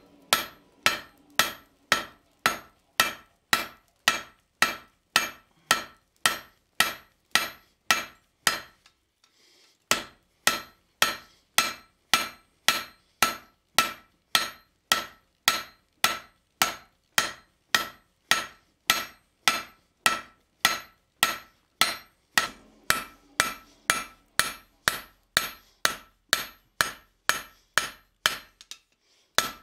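Blacksmith's hand hammer striking a red-hot railroad spike on the anvil in a steady rhythm of about two to three ringing blows a second, with a brief pause about nine seconds in. The spike's end is being forged out into an axe blade.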